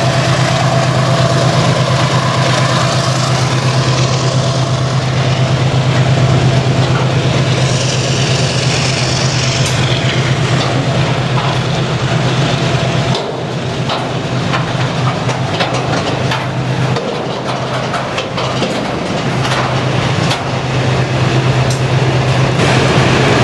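Freight train of rail tank wagons rolling past close by: a steady, loud rumble of wheels on the rails. From about halfway through, many sharp clicks come over it.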